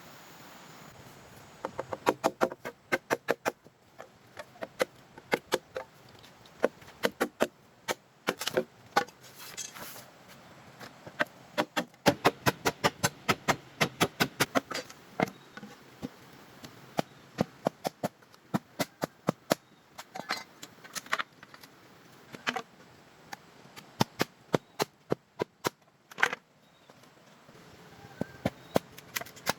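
Runs of sharp knocks, like chopping or tapping strokes, coming several a second in bursts with short pauses between them.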